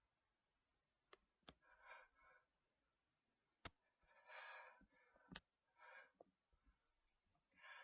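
A person's faint breaths and sighs, several soft in-and-out breaths with a few small, sharp clicks between them.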